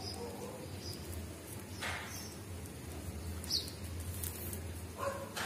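Plastic basket wire rustling and ticking as it is handled and threaded, with a short rustle about two seconds in, over a steady low hum and a couple of faint high chirps.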